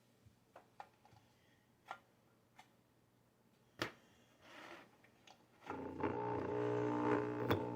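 A few light clicks and knocks, then about two-thirds of the way in a faulty pump motor is switched on and hums steadily.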